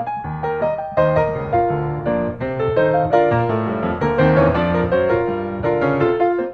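Background piano music: a quick, steady run of struck notes.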